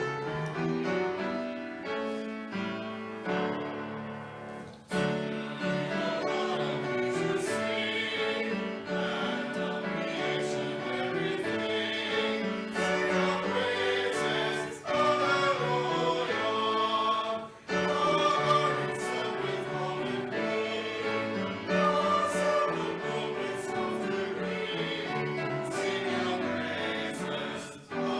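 Choir singing in phrases, with short breaks between them.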